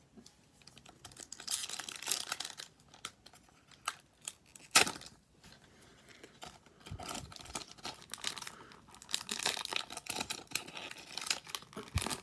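A hockey card pack wrapper being torn open and crinkled, in irregular crackling spells, with one sharp snap about five seconds in.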